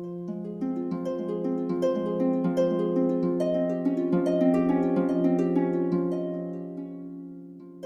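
Background music: a gentle instrumental of plucked-string notes in a flowing, repeating pattern that dies away near the end.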